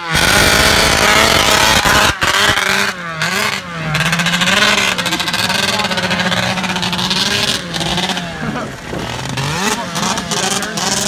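Arctic Cat ZR440 snowmobile's two-stroke big-bore engine running, its pitch wavering up and down with the throttle, with a few brief breaks in the sound. The owner judges it to run badly and to need a fuel pump and a carb tune.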